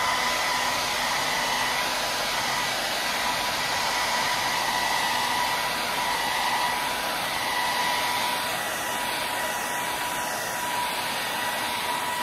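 Handheld hair dryer running steadily: an even rushing blow of air with a thin, steady whine from its motor.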